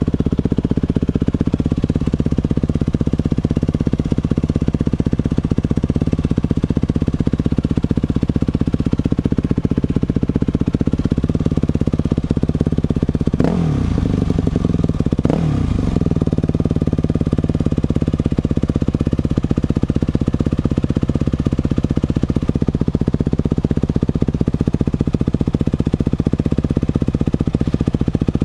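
Yamaha 250 dirt bike's single-cylinder engine running steadily. About halfway through, its pitch falls sharply twice, about two seconds apart.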